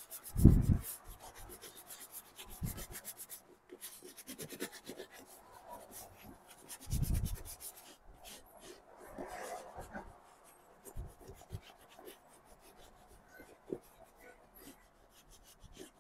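A shoe brush worked over a leather Red Wing work boot in quick back-and-forth strokes, getting sparser after about eight seconds. Two dull thuds come about half a second in and again about seven seconds in.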